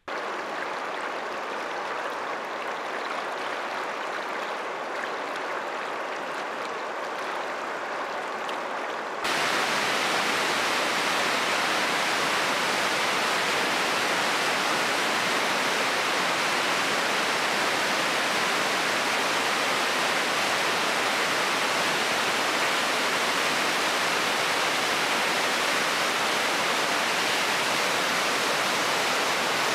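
Steady rush of moving river water for about nine seconds, then a sudden step up to the louder, even roar of big-water whitewater rapids pouring around boulders.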